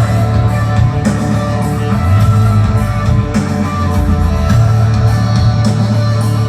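Rock music with guitar and drums, played loud through a 4 Acoustic line array PA system with heavy bass.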